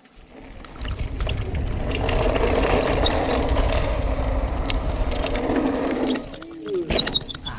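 Mountain bike rolling fast down a dirt trail: a rumble of tyres on dirt and wind that builds about a second in, holds steady, and eases off after about six seconds. A few sharp clicks follow near the end.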